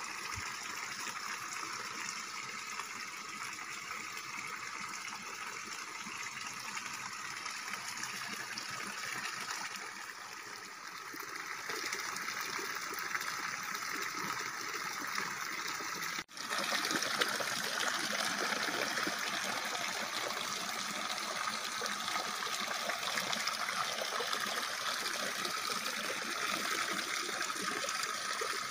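Water pouring steadily from an open trough spout and splashing into the ground below. It breaks off for an instant about halfway through and resumes a little louder.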